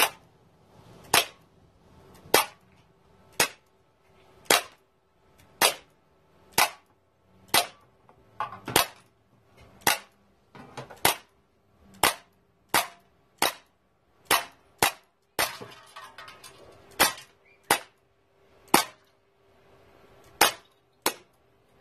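Umarex Legends P.08 CO2 BB pistol firing a string of about twenty shots, roughly one a second, each a sharp pop, with a short pause between the shots now and then.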